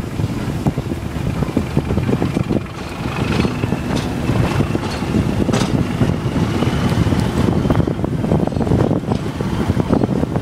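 Railway carriage rolling along, heard from an open window: a steady rumble with wind buffeting the microphone and scattered clicks, and a faint high whine that slowly rises in pitch through the middle.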